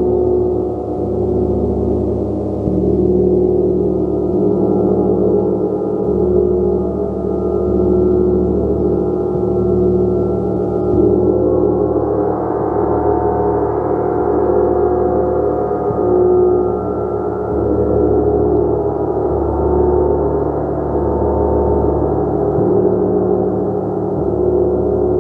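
Gong played continuously: a sustained wash of many overlapping tones that swells gently with repeated soft strikes every second or two.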